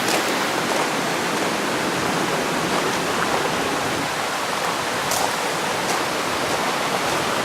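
Steady, even rushing of water, with a faint click about five seconds in.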